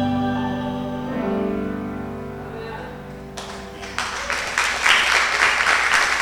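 The last held chord of a worship song, piano with voices, fades away; about three seconds in the congregation breaks into applause.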